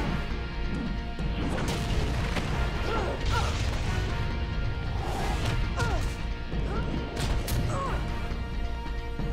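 Fight sound effects from an animated cartoon: several sharp hits and crashes over a continuous music score.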